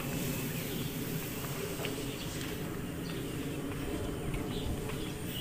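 Footsteps on a paved street, a few faint steps over a steady low outdoor background hum.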